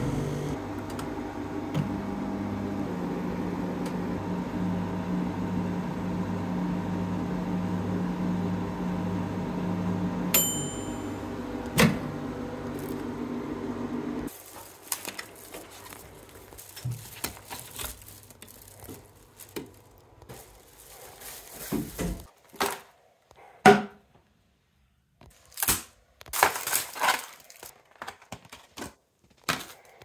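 Iris Ohyama dial-timer microwave oven running with a steady hum, its timer bell dinging once about ten seconds in as the hum stops. A sharp click follows, the remaining steady noise cuts off a few seconds later, and scattered knocks and rustles fill the rest.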